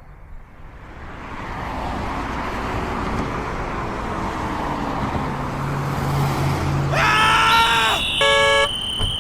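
Road vehicle noise swelling over the first couple of seconds and holding, then about seven seconds in a loud wavering pitched blare for about a second, followed by a short, steady car horn honk.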